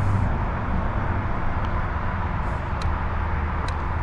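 Aprilia Tuono V4 1100's V4 engine idling steadily, with two short sharp clicks near the end.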